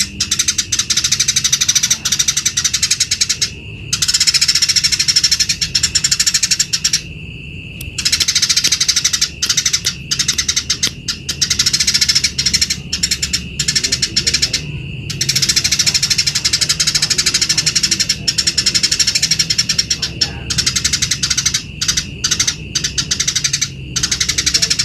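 House sparrows chirping in rapid, dense bouts, broken by a few short pauses.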